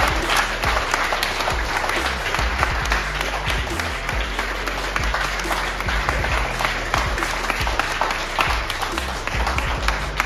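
A group of people applauding steadily, a dense run of hand claps.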